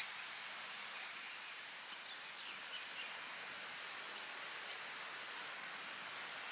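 Steady hiss of wind through pine trees, with a few faint bird chirps about two and a half seconds in.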